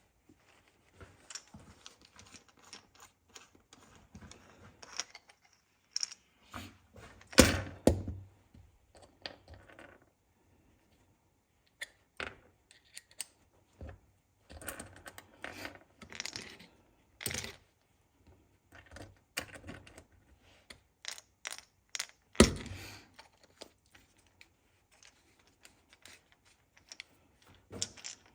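Scattered clicks, taps and light knocks of hand tools and small metal and plastic parts being handled on a chainsaw while a bark-dog mounting cover is taken off, with louder knocks about seven seconds in and again a little past twenty seconds.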